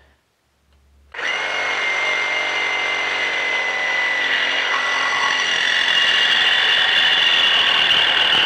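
Milwaukee M18 Super Sawzall cordless reciprocating saw cutting through a metal pipe with a new metal-cutting blade, orbital action off. It starts about a second in and runs steadily with a constant whine through the cut.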